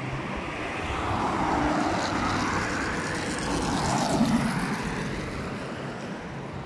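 Cars driving past on the road: tyre and engine noise swells and fades twice, once about a second and a half in and again, loudest, about four seconds in.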